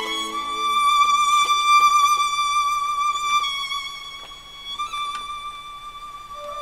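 Background music: a violin playing slow, long-held high notes, with softer lower accompaniment that fades out about a second in.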